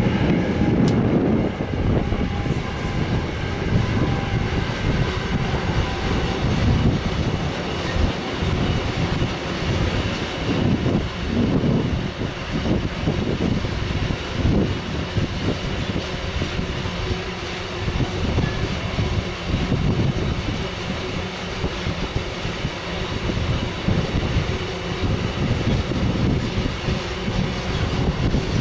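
Freight train of car-carrier wagons loaded with vans rolling past, a steady rumble of wheels on the rails with many small irregular knocks.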